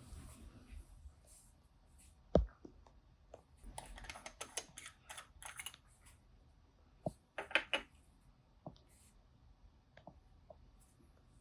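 Sparse soft clicks and taps of makeup items being handled and worked against a camera lens. There is a soft thump about two seconds in and a quick cluster of sharper clicks around seven to eight seconds.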